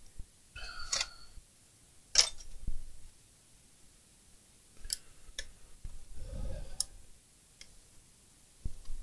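Hands handling an opened laptop's plastic chassis: scattered sharp clicks and taps, with a brief scrape about a second in and a low rubbing rumble around six seconds in as the case shifts on the mat.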